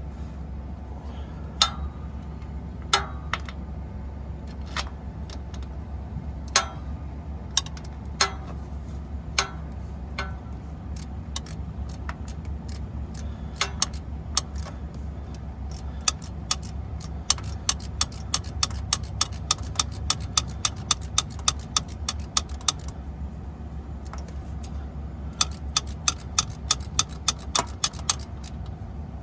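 Socket ratchet clicking as a long starter-motor bolt is worked loose: scattered single clicks at first, then a quick run of about four clicks a second, a short pause, and another run near the end, over a steady low hum.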